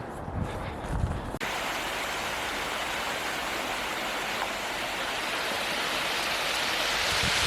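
A few footsteps on the trail, then, after a sudden cut, the steady rushing of a stream's flowing water.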